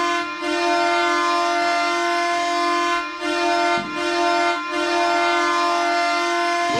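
Hockey goal horn blaring: one long, deep, steady horn blast with a few brief breaks, cutting off at the end as goal music starts.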